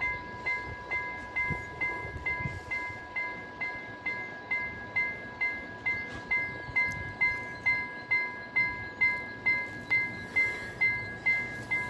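Swedish level-crossing warning bell ringing, a bright repeated strike about twice a second over a steady tone. The crossing is activated, warning of an approaching train.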